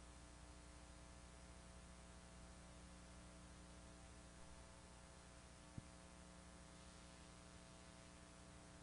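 Near silence: a steady low electrical hum with a faint hiss, and one brief click a little past halfway.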